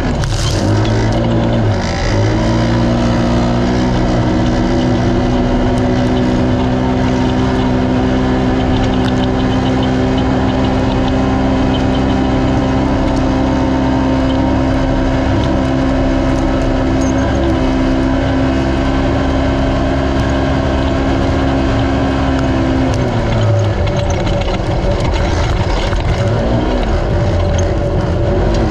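Naturally aspirated race UTV engine held at a steady high speed for about twenty seconds under a constant rush of noise. Near the end its pitch drops and then wavers up and down.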